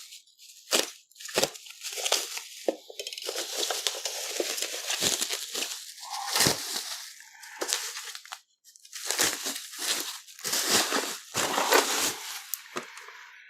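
Bubble wrap being pulled off a package and crumpled by hand: crinkling, rustling plastic in irregular bursts with a few short pauses.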